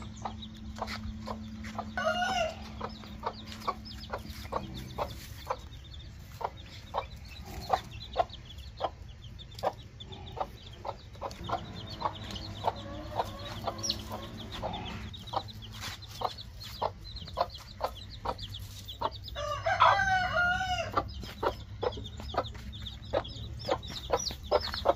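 Desi mother hen clucking over and over, about two to three short clucks a second, with her chicks peeping high and thin around her. A rooster crows once, a louder wavering call about four-fifths of the way through, with a shorter pitched call shortly after the start.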